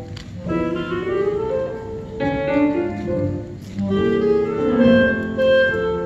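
Small jazz combo playing live: a clarinet carries the melody over piano accompaniment.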